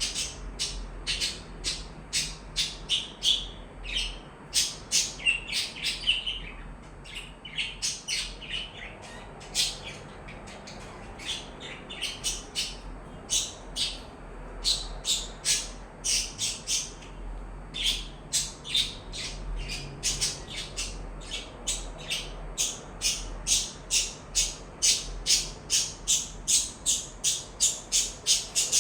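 Small pet parrots chirping: a rapid, continuous run of short, shrill, high calls, several a second, with a couple of brief lulls.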